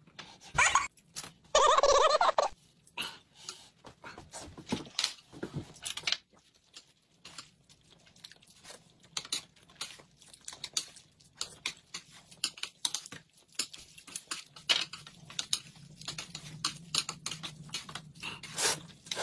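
Close-miked eating sounds: chewing, lip-smacking and slurping of noodles and boiled egg, with many short clicks of chopsticks and mouths. A brief loud voice-like sound about two seconds in.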